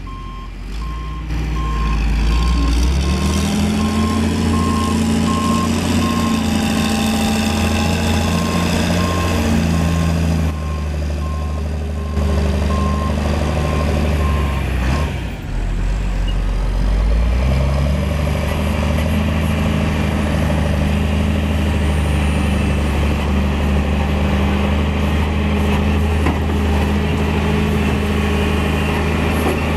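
John Deere 672B motor grader's diesel engine running steadily under load, its revs rising about two seconds in. A reversing alarm beeps on and off through the first half, stopping about halfway, where the engine sound briefly dips.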